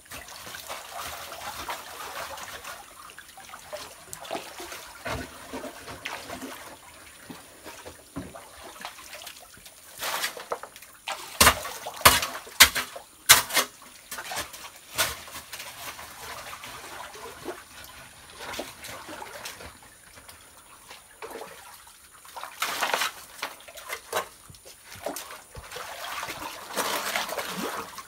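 Shallow muddy water trickling and splashing as gravel and soil are dug out of a riverbank by hand. A cluster of sharp knocks, stone or a tool striking rock, comes near the middle.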